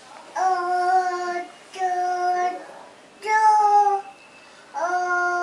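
A toddler singing four drawn-out notes of about a second each, with short breaks between them.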